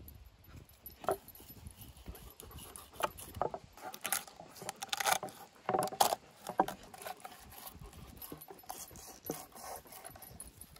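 Fillet knife cutting through a whitefish on a wooden cutting board: irregular short knocks, scrapes and slaps of the blade and fish against the board, loudest in a cluster between about four and six and a half seconds in.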